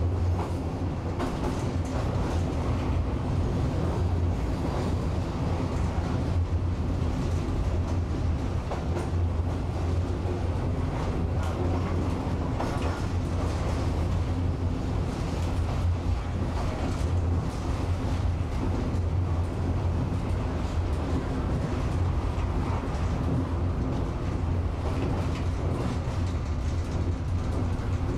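Tram running along its track, heard from on board: a steady low rumble of wheels and motors with scattered faint clicks from the rails.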